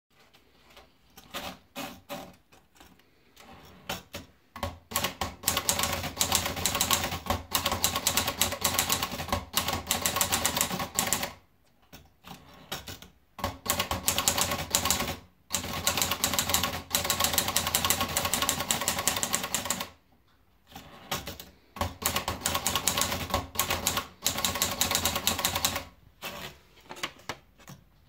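Olivetti Lettera 22 portable manual typewriter: a few scattered clicks as the sheet of paper is fed in, then rapid keystrokes in three long runs separated by short pauses, with a few last clicks near the end.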